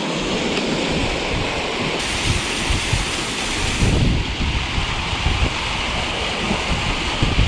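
Small waterfall rushing steadily, with low rumbling wind noise on the microphone.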